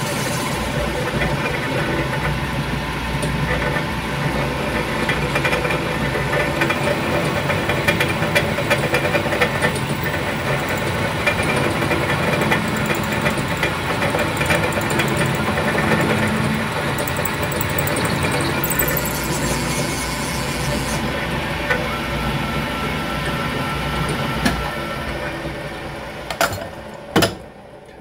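Shoptask lathe-mill combo's mill spindle running with a twist drill cutting into a steel post, a steady machine hum with cutting noise. Near the end the machine winds down and there are a couple of sharp knocks.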